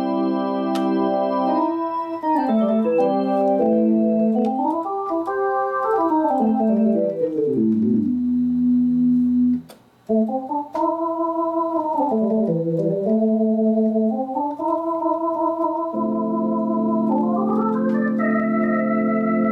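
Gulbransen Rialto II electronic theatre organ played on its tibia voices drawn up on the drawbars: held chords and flowing melodic runs on the manuals, stopping briefly about halfway, then sustained chords with a low bass note underneath near the end.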